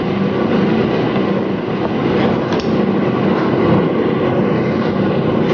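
Steady loud rumbling noise, with a few faint knife strokes through an eggplant on a cutting board about two seconds in.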